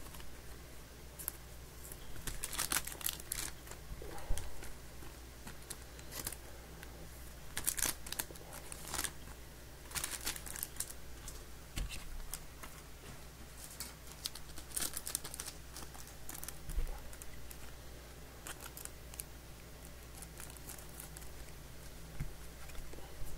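Soft plastic penny sleeves crinkling and rustling in irregular spells as trading cards are slid into them one after another, with a few soft knocks on the table.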